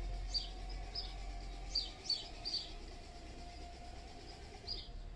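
Songbird chirping: short, high notes that drop quickly in pitch, about eight in the first three seconds and one more near the end.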